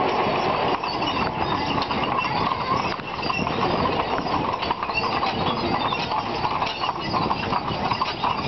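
A team of two carriage horses' hooves clip-clopping steadily on a paved lane as they pull the carriage along.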